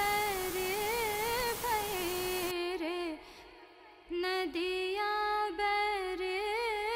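Background music: a single female voice singing a slow, wavering melody with many small ornaments and glides. A hiss runs beneath it until about two and a half seconds in, and the singing breaks off for about a second about three seconds in.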